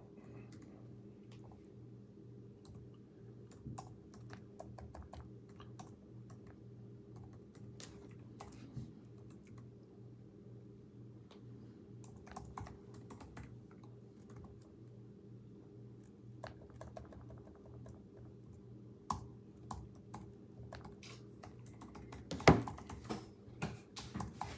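Scattered clicks of typing on a computer keyboard over a steady low hum, with one sharp knock about 22 seconds in.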